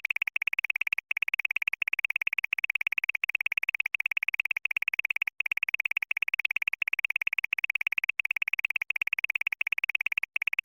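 Electronic synthesized sound effect: a fast, steady, high-pitched pulsing trill, broken by a few brief gaps.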